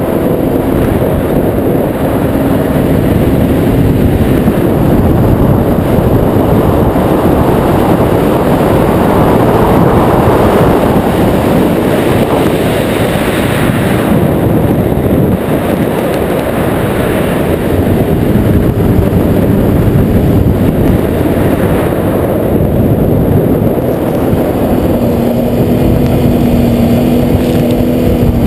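Audi race car's engine running hard with revs rising and falling as it is driven around an ice track, heard through a roof-mounted camera with heavy wind rumble on the microphone.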